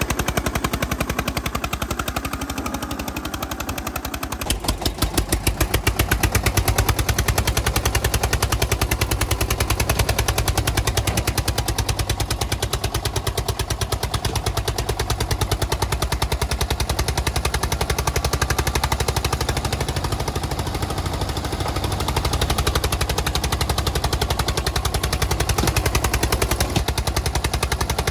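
Tractor engine running with a rapid, even putter, louder from about four and a half seconds in. It is most likely an engine sound laid over the toy tractor's drive.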